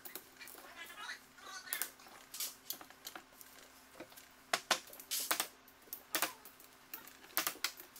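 Irregular sharp metallic clicks and clinks of a ratchet wrench and bolts being worked on a turbocharger's turbine housing, thickest about halfway through, over a faint steady hum.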